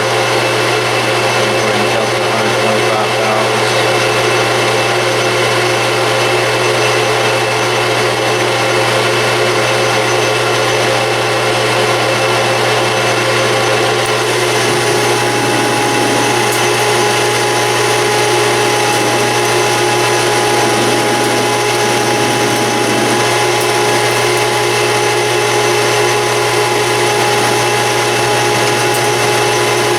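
Metal lathe running steadily with its motor hum and whine as it turns down a diameter. A new steady tone joins about fourteen seconds in.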